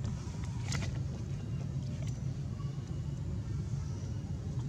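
Steady low rumble, with a short sharp click about three-quarters of a second in.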